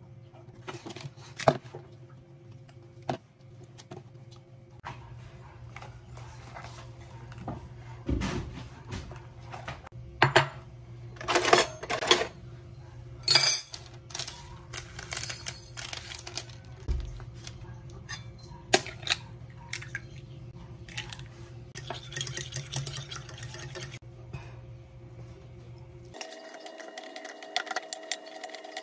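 Ceramic bowl and cutlery clinking and knocking on a tiled countertop, with a fork clinking in the ceramic bowl as egg is beaten, in a quick run of ticks near the end. A steady low hum runs underneath until it cuts out near the end.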